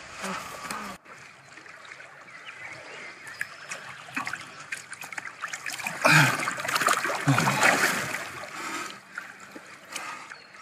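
Water splashing and sloshing as a man is held under in a pond, loudest from about six seconds in, with two short grunts during the struggle.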